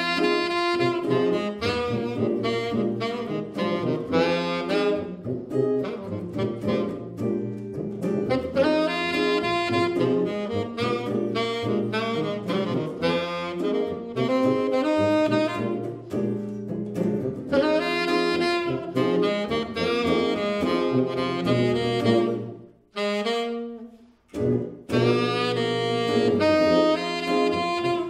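Jazz trio of tenor saxophone, archtop electric guitar and tuba playing a slow tune, the saxophone carrying the melody over guitar chords and a tuba bass line. Near the end the band stops for about a second and a half, then comes back in.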